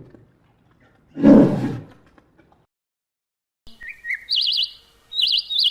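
A big cat's short rough roar about a second in. After a pause comes a small bird's song: high chirps and fast trilled phrases.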